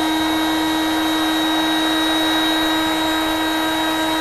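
Electric heat gun running steadily: an even rush of blown air with a constant motor whine, as it shrinks heat-shrink tubing onto a threaded-rod-to-stepper-motor coupling.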